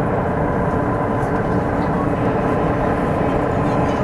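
KTX-Sancheon high-speed train running at about 300 km/h, heard inside the passenger cabin: a constant rush of wheel and air noise with a faint steady tone.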